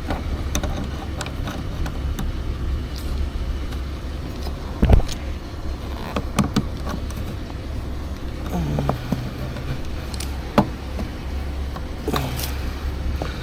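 Metal hand tools clinking and knocking as the truck's jack tools are handled, with one heavier thump about five seconds in, over a steady low rumble.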